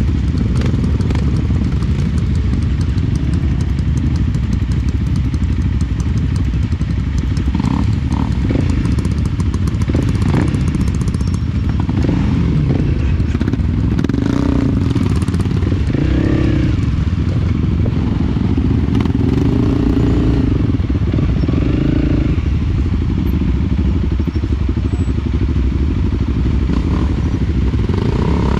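Small motorcycle engine running steadily as the bike rides a rough off-road trail, with scattered knocks and clatter from the bumps, mostly in the first half.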